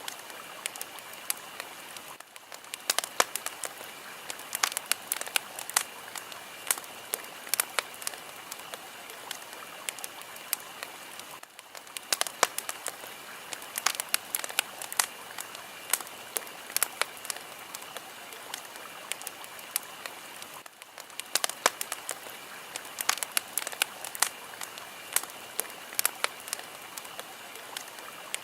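Fire crackling steadily over a soft hiss, with frequent sharp pops at irregular intervals. The sound briefly drops away about every nine seconds.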